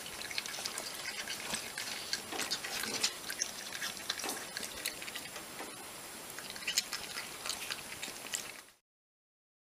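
Bilby sounds: a dense run of small, irregular clicks and crackles over a steady hiss, cutting off abruptly about a second before the end.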